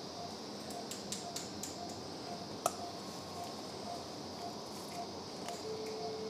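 Faint, regular beeping of an anaesthesia monitor, about two and a half beeps a second, over a steady operating-room hum, with light clicks of surgical instruments, the sharpest about two and a half seconds in. A steady tone comes in near the end.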